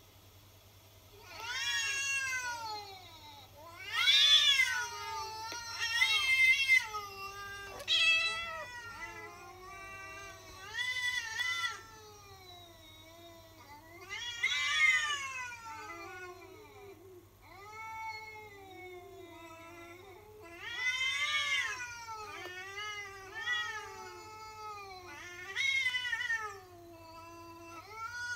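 Two cats caterwauling at each other in a standoff: long, wavering yowls that rise and fall, one after another and sometimes overlapping, heard through a laptop's speakers.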